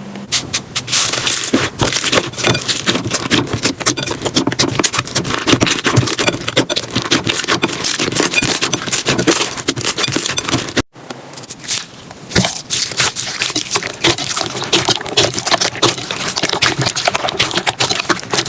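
Slime being handled, a dense run of small crackles and clicks. There is a brief break about eleven seconds in, where one clip gives way to the next.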